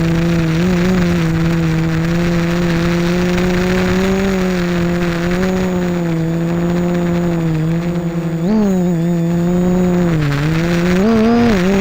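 GAUI 330X quadcopter's electric motors and propellers humming steadily in flight, the pitch wavering slightly, then dipping and rising several times from about eight seconds in as the throttle changes.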